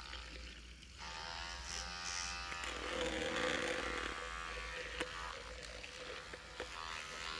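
StyloPro electric makeup brush cleaner spinning a brush in soapy water inside its bowl: a small motor's steady whirr that starts about a second in and grows louder in the middle.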